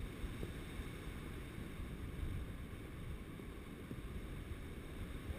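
Airflow buffeting the microphone of a paraglider pilot's camera in flight: a steady low rumble of wind noise.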